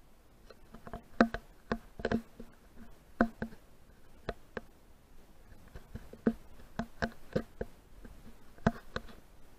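A dozen or so irregular hollow knocks and clicks, some in quick pairs. The loudest comes about a second in.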